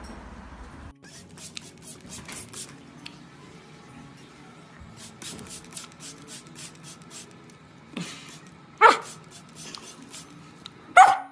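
Samoyed puppy licking at a plastic squeeze bottle, a run of quick wet clicks, then short high barks about nine seconds in and again near the end.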